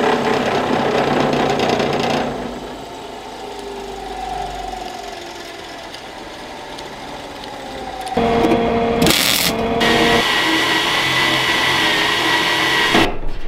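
A narrow belt sander grinding a small metal latch piece, then spinning down with a slowly falling whine. About eight seconds in, a cordless drill starts up and runs with a steady high whine as it bores through the metal lid of an ammo can.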